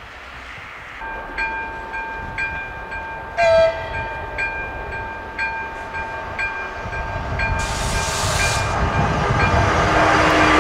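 An AŽD 71 level-crossing warning bell starts about a second in, striking about once a second over a steady ringing tone. A short train horn blast sounds about a third of the way through. An approaching electric passenger train's rumble grows steadily louder toward the end, with a brief hiss near the end.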